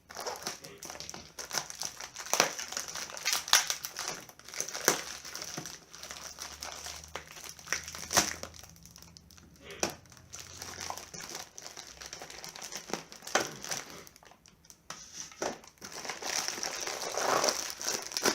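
Packaging crinkling and rustling as it is unwrapped by hand, with irregular sharp clicks and light knocks throughout.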